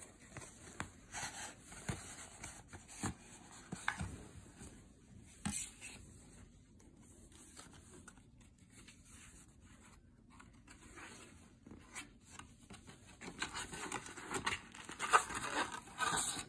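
Card packaging of an iPod mini retail box being handled by hand: rubbing, sliding and tapping of the white cardboard box and its paper inserts, with sharp clicks and rustles. It goes quiet for a few seconds in the middle, then grows busier and louder near the end as the inserts are lifted out.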